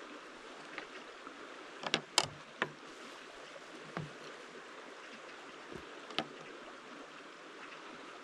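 Cutlery clinking against metal plates as two people eat, a few sharp clinks with a cluster of three about two seconds in. Behind it, the steady rush of a flowing stream.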